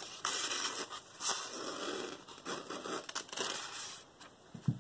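A dull KitchenAid santoku knife drawn through a held sheet of paper several times. The paper rustles and tears roughly instead of slicing cleanly, the sign of a dull edge.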